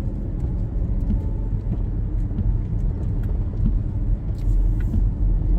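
Car interior road noise while driving: a steady low rumble of tyres and engine, with faint scattered ticks.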